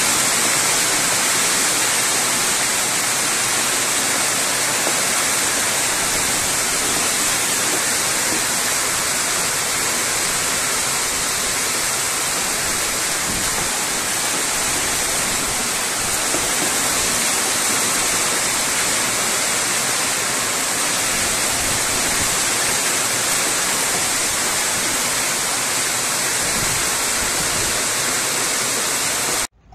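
Hailstorm: a dense, steady hiss of hailstones and rain pelting the ground, cutting off abruptly near the end.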